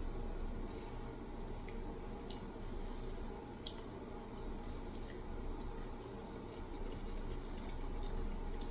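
Eating sounds: chewing chicken nuggets dipped in sauce, with scattered soft wet clicks and smacks over a steady low hum.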